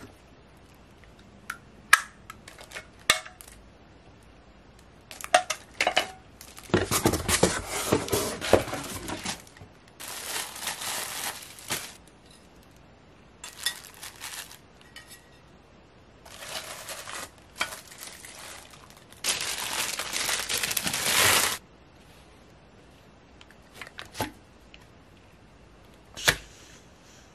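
Packaging being torn and crinkled in several short bursts, amid light clicks and clinks of dishes and utensils.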